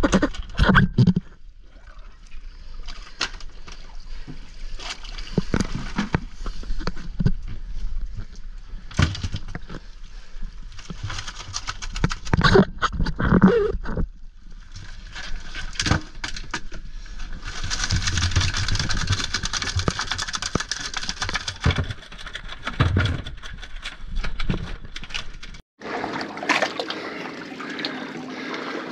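Underwater camera sound: irregular gurgling and bubbling with knocks and bumps, and a longer stretch of rushing bubbles about two-thirds of the way through. Near the end the sound cuts out for a moment and a steadier water sound follows.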